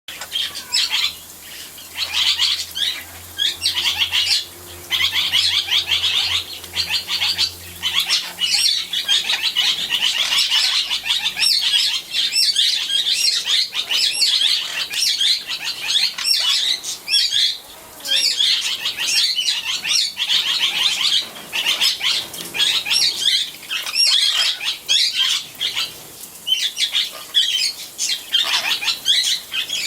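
A parrot bathing, flapping its wings hard in the water: bouts of rapid fluttering and splashing a second or a few long, with short pauses between.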